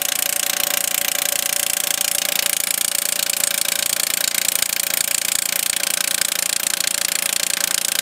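Powered post driver hammering a steel T-post into the ground: a loud, rapid, steady hammering.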